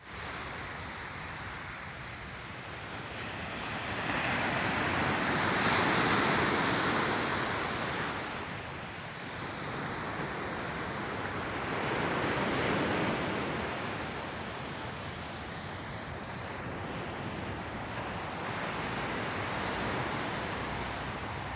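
Mediterranean Sea waves washing in and drawing back, a steady rush that swells loudest about four to eight seconds in, again around twelve seconds, and more gently near the end.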